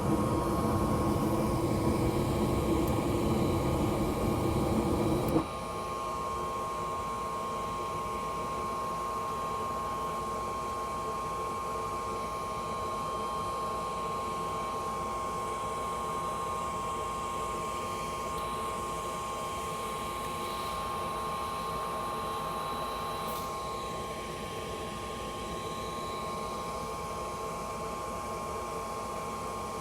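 Gas furnace burners running with a rushing flame noise, then cutting out abruptly about five seconds in: the burners failing to stay lit. A steady motor hum with a whine, typical of the draft inducer fan, keeps running after the flame goes out.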